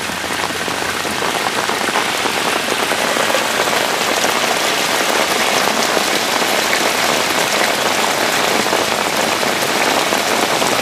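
Steady rain falling on wet grass and pavement, an even hiss that grows slightly louder as the rain picks up.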